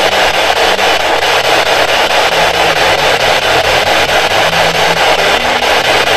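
Loud, steady radio static with a fast, even flutter running through it and faint low tones coming and going.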